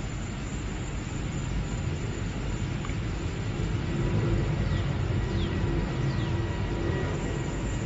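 Steady low rumble of outdoor background noise, with three faint short falling chirps about halfway through.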